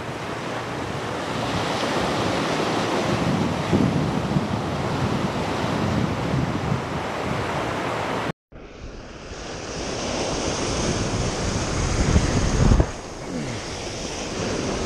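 Ocean surf breaking and washing up the beach, with wind buffeting the microphone. The sound drops out for a moment about eight seconds in.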